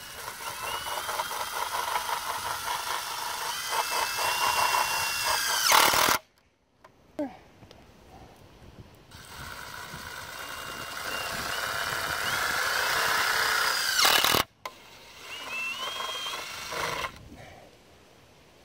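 Cordless impact driver driving self-tapping duct screws through a galvanized sheet-metal chimney cap: two long runs of several seconds, each cutting off suddenly, then a shorter run near the end. The motor's whine rises in pitch, and a rapid even hammering from the impact mechanism comes in as a screw seats.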